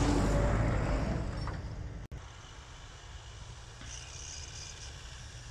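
Nissan Navara pickup's engine and tyres as it drives close past through deep snow, a loud low rumble. About two seconds in the sound cuts to a much quieter, steady low engine hum of a more distant pickup.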